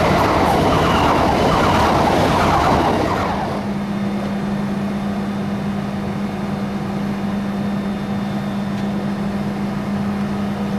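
Electric multiple-unit train rushing through a station at speed, with a wavering electric whine. About three seconds in this cuts to a steady low hum from a standing Class 395 Javelin electric train.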